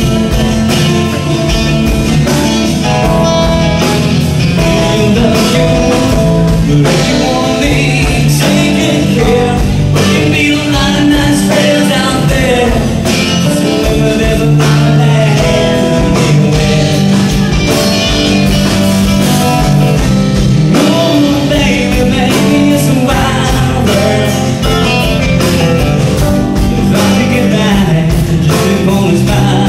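Live rock band playing a song through a PA: electric guitars, keyboard, bass and drum kit keeping a steady beat, with a singer's voice over them.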